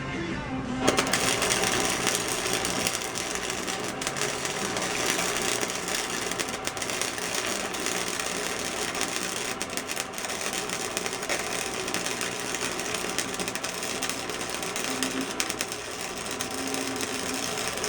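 Flux-core wire-feed welder arc crackling steadily as a weld bead is laid, starting about a second in.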